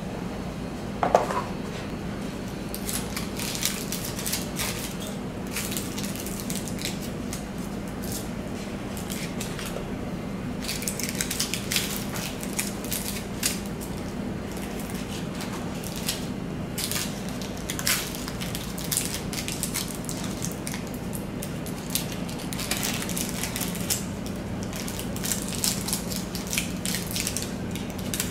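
Gloved hands packing chocolates into a cardboard gift box's tray: scattered light clicks, taps and rustles, with a short squeak about a second in. A steady low hum runs underneath.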